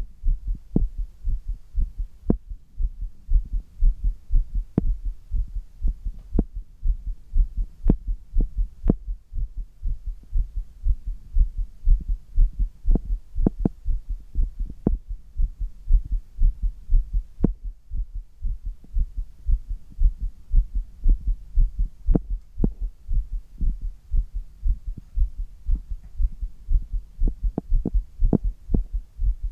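A human heartbeat heard close up through the chest, beating hard and fast in a steady rhythm of deep thumps, about two beats a second, raised by exertion during handstands. Occasional sharp clicks sit on top of the beats.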